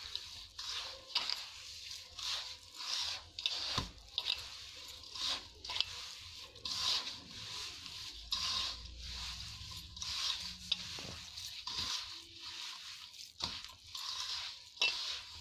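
A hand mixing and rubbing crumbly mawa (khoya) with powdered sugar (boora) in a steel bowl: repeated gritty squishing and scraping strokes, about one to two a second.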